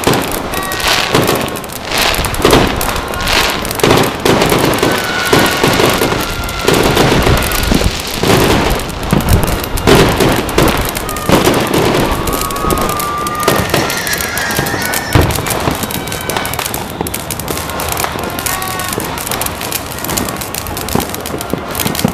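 Fireworks and firecrackers going off without a break: dense crackling and popping with many sharp bangs. A few brief high whistling tones sound over the crackle.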